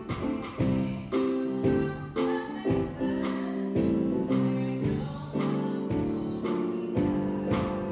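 Church music: voices singing a carol over an instrumental accompaniment of struck chords, each chord sounding sharply and then fading, in a steady rhythm of roughly two a second.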